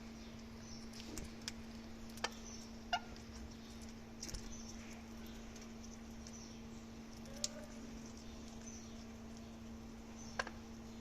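Parrots cracking melon seeds: sharp clicks every second or few, with faint high chirps between them, over a steady low hum.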